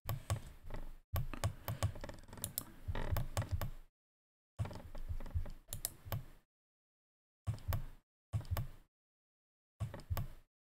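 Clicking of a computer mouse and keyboard in bursts of quick clicks separated by stretches of silence, busiest in the first few seconds and sparser after.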